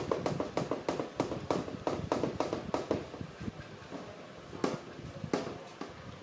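Young macaque chewing grilled honeycomb with quick smacking clicks, about four a second, that thin out after about three seconds, with two louder clicks near the end.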